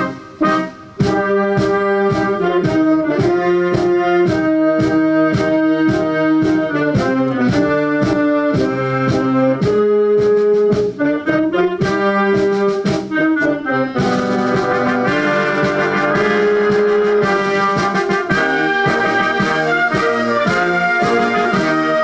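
Brass-led music with a steady beat, the arrangement growing fuller about two-thirds of the way through.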